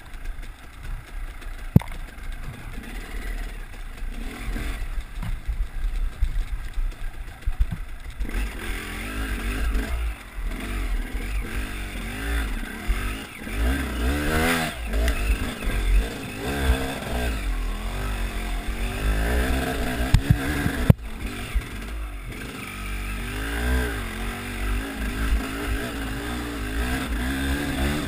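Dirt bike engine under load on a steep, muddy climb, quieter for the first few seconds, then revved up and down again and again from about eight seconds in as the throttle is worked for grip. A heavy low rumble runs underneath.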